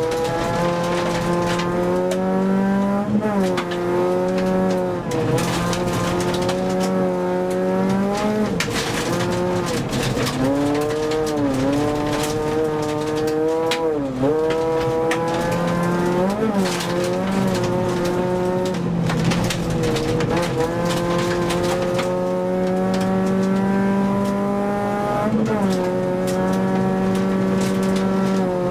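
Rally car engine heard from inside the cabin, running hard on gravel: its pitch climbs through each gear and drops sharply at gear changes and throttle lifts, about half a dozen times. Gravel and stones clatter against the car throughout.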